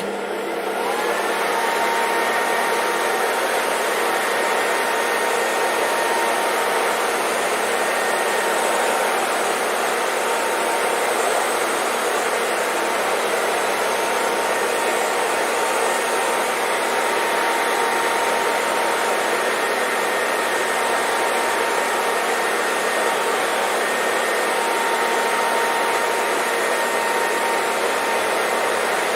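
Electric hair dryer running: it spins up in the first second, then blows steadily, with a rush of air and a steady motor whine.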